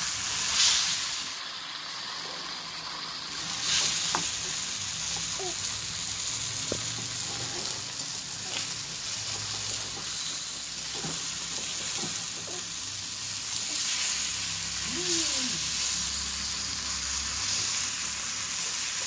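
Spice-coated sardines sizzling steadily as they shallow-fry in oil in a metal pan, with the occasional scrape of a perforated metal spatula turning them. The sizzle swells briefly near the start and again about four seconds in.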